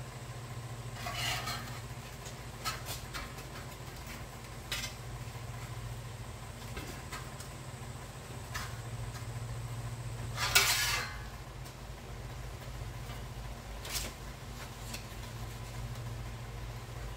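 Sheet steel clinking and scraping against the welded pipes of a homemade bending stand as it is slid into the gap between them and bent by hand, with a louder scrape about ten and a half seconds in. A steady low hum runs underneath.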